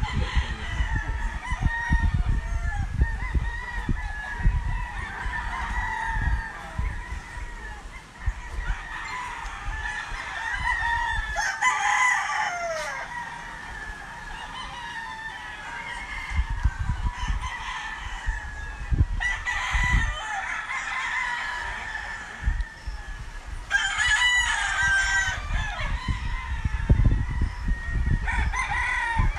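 Many gamecocks crowing from all around, one call after another overlapping with no break.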